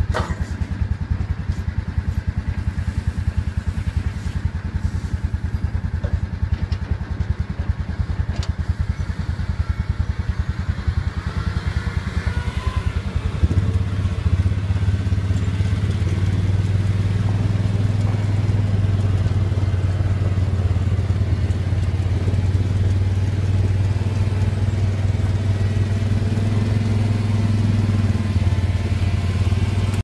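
A MAN concrete mixer truck's diesel engine running, with a rough, rapid pulsing beat at first; about halfway through it becomes louder and steadier as the truck is driven.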